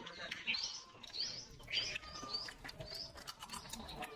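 A bird chirping: about six short high calls, evenly spaced, repeating about every two-thirds of a second.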